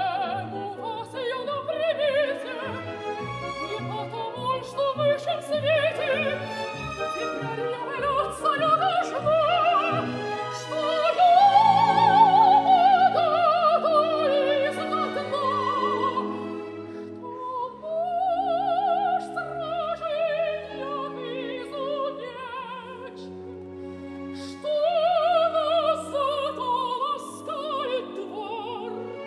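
Operatic soprano singing in Russian with wide vibrato over orchestral accompaniment, building to a loud high held phrase about halfway through.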